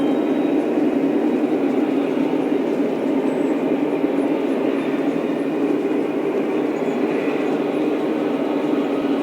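Lionel O-scale model train running on its track: a steady rumble of the locomotive's motors and wheels rolling on the rails.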